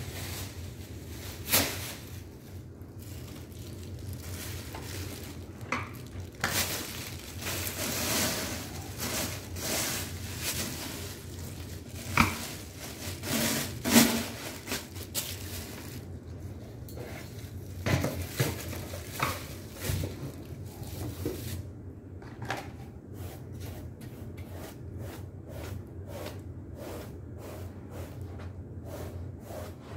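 Cleaning and handling noises: a plastic bag rustling and crinkling, with scattered knocks and clatters of things being moved. From a little past the middle, a steady run of short strokes follows, about two or three a second.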